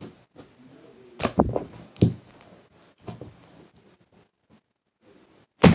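Crunchy slime being stretched and worked into a bubble: scattered crackling clicks and squelches, then one loud, sharp snap near the end.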